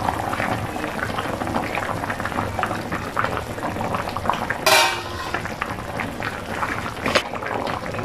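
A pan of fish soup boiling hard, a dense steady bubbling and crackling. There is a short louder burst about halfway through and a smaller one near the end.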